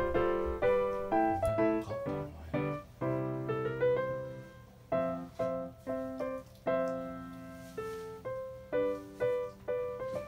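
Background piano music: a light tune of single notes and chords, each struck and dying away.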